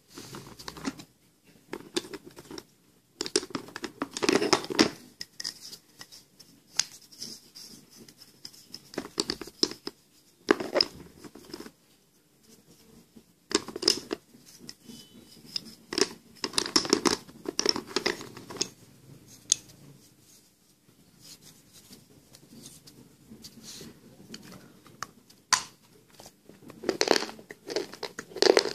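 Broken slate pencil pieces clattering and scraping against each other and the plastic box as a hand rummages through them and picks some up. It comes in irregular bursts of clicking, with quiet gaps between.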